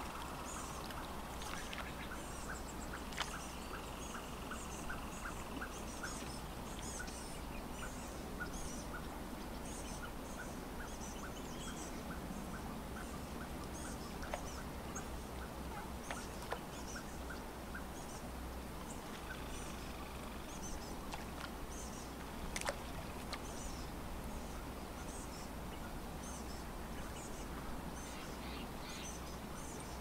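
Birds calling over a calm lake, with many short high chirps throughout and a regular series of short calls repeating a few times a second through the first half. Water laps gently under a soft, steady outdoor hush.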